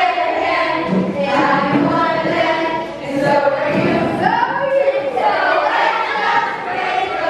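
A group of children and adults singing a song together.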